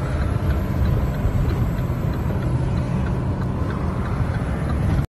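Steady engine and road noise of a semi tractor-trailer under way, heard inside the truck's cab, heaviest in the low rumble.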